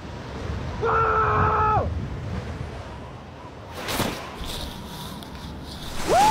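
Wind rushing over the microphone. A person's long, held shout comes about a second in and a shorter rising-and-falling yell near the end, with a single thump about four seconds in.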